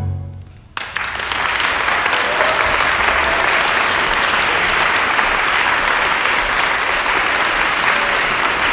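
The string orchestra's last note dies away, and just under a second in the audience breaks into steady applause.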